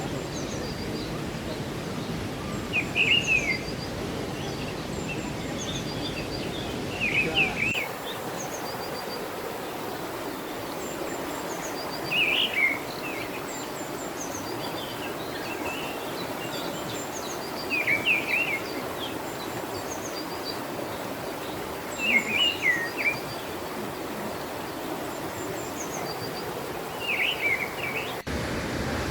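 A bird calls again and again, a short burst of high notes about every four to five seconds, with fainter high chirps of other birds, over a steady rushing background noise.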